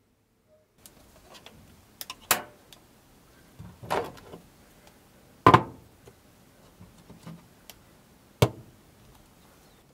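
Plastic food-storage containers set down one after another on a hard desk: a series of separate knocks and clatters with small handling noises between them, the loudest a little past halfway through.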